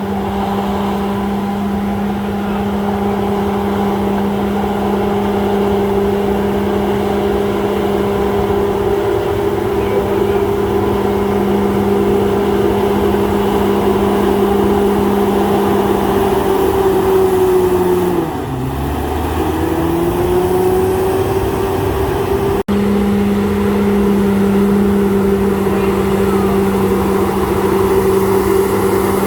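Komatsu D68ESS bulldozer's diesel engine running steadily and loud. About two-thirds of the way through, its note dips lower, then climbs back to a steady pitch.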